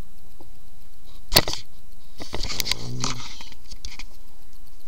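Handling noise from a webcam being picked up and turned: a sharp knock about a second and a half in, then a second or so of rustling and scraping, with a few small clicks near the end.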